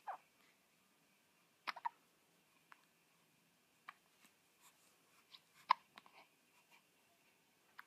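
Seven-day-old newborn baby hiccuping: short, faint, squeaky hiccups about every two seconds, about four in all, the one near the end the loudest.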